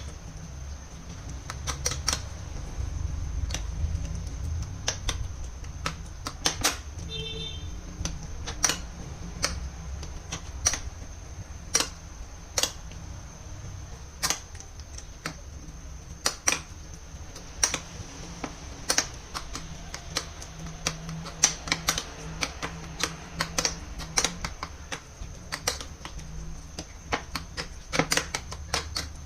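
A knife chopping on a cutting board: sharp, irregular knocks, about one or two a second, over a low steady rumble.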